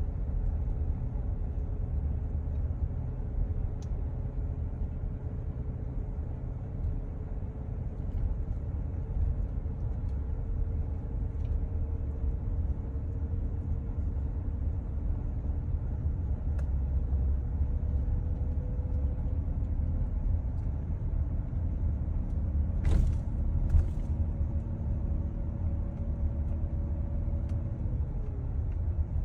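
Car driving, heard from inside: a steady low rumble of engine and road noise. A faint engine tone climbs slowly as the car gathers speed and drops near the end as it slows, with two brief clicks a little over twenty seconds in.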